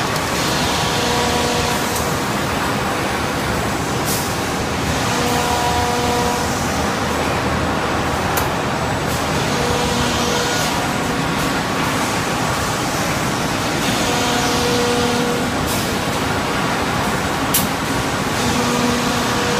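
Automatic wood-strip gluing and panel-cutting line running: steady machinery noise with a few sharp clicks and knocks scattered through, and a faint hum that comes and goes every few seconds.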